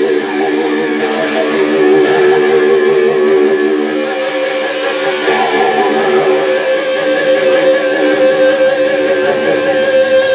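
Live rock band playing loud, amplified music, led by distorted electric guitar holding long sustained notes.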